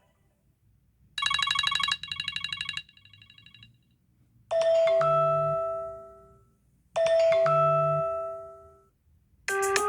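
iPhone ringtones played in turn: first a fast, pulsing melodic phrase heard twice and then more quietly a third time, then a bell-like chime struck twice, each ringing out and fading over about two seconds. A different, busier ringtone starts near the end.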